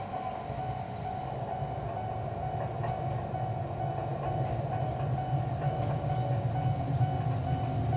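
A Kobe Electric Railway train running: a steady hum over a low rumble that grows gradually louder.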